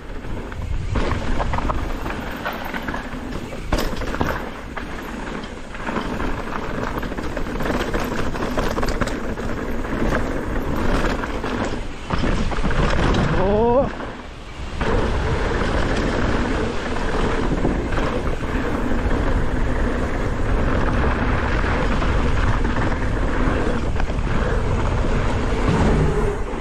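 Mountain bike riding down a rough dirt trail: steady wind rush over the microphone with rumble and rattle from the tyres and bike on the ground. A short pitched glide rises and falls about 13 seconds in, followed by a brief drop in the noise.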